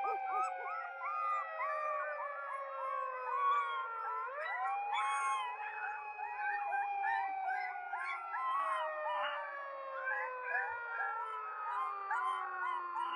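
Dogs howling: long howls slide slowly down in pitch, with a new one rising in about four seconds in, under many short rising-and-falling yelps.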